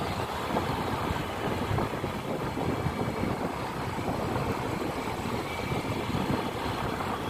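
Motor scooter riding along a road at a steady speed: its small engine running, mixed with wind rushing over the microphone.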